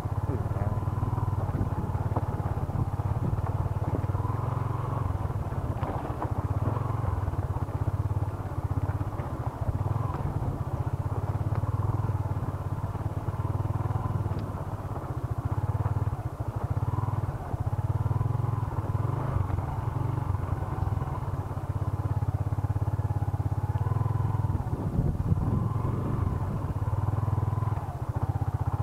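Yamaha Exciter 150's single-cylinder four-stroke engine running steadily at low revs as the motorcycle is ridden slowly along a rough, stony dirt track.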